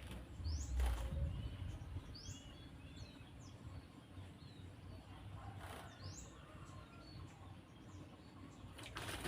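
Short, high bird chirps, four of them spread through the stretch, each bending down in pitch; plausibly a cucak jenggot (grey-cheeked bulbul) calling. A few brief rushing noise bursts and a low rumble near the start lie under it.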